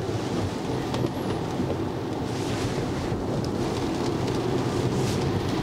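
Cabin noise inside a Tesla Model Y driving at about 30 km/h on a wet road: a steady low tyre and road rumble with a light hiss of water spray, and no engine sound. The car is a series Model Y with no added sound insulation.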